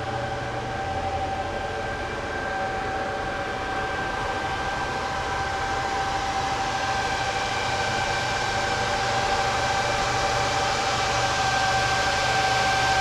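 GPU mining rig's cooling fans running: a steady rush of air with a high, even whine and a low hum, slowly getting louder.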